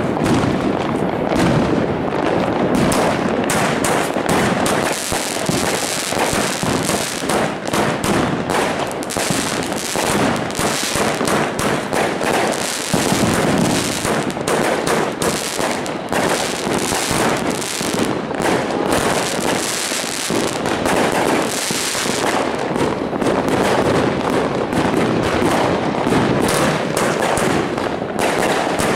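Herlat Kracherblitz fireworks cake firing: a continuous, dense barrage of launch thumps, bangs and crackling from bursting stars.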